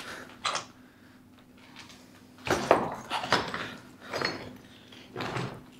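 Footsteps crunching and scraping on debris-strewn concrete, irregular and uneven, with a cluster of steps a little past the middle.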